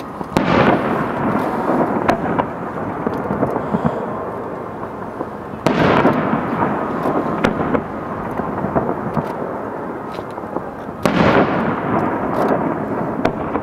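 Aerial firework shells bursting: three loud booms about five seconds apart, each trailing off into a long rumble over several seconds, with scattered small crackles in between.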